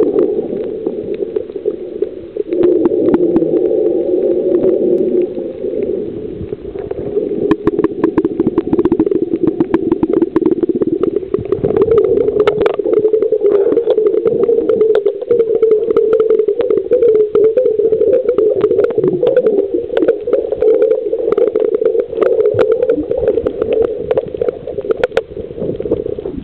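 Muffled underwater noise picked up by a camera in a waterproof housing: a steady low rumble with many scattered clicks and crackles.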